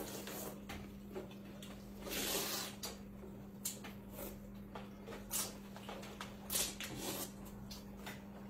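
People eating noodles with chopsticks: a few brief slurps and scattered clicks of chopsticks against plates, over a steady low hum.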